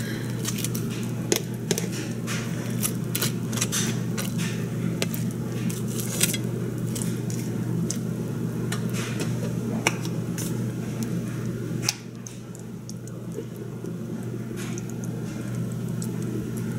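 Butter knife clicking and scraping against a ceramic plate as mayonnaise is spread over an okonomiyaki, with squelches from the squeeze bottle, over a steady low hum.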